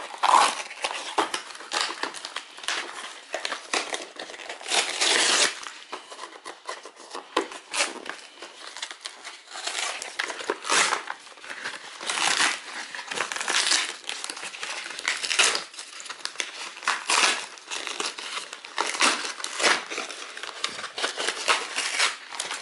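Cardboard box of a Swiffer mop kit being torn open by hand, with irregular tearing and crinkling.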